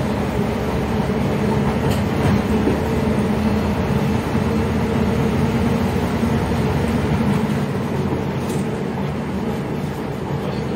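LiAZ-677M city bus with its ZIL V8 petrol engine running steadily as the bus drives, heard from the front of the cabin over road and rattle noise. The engine hum weakens a little about eight seconds in.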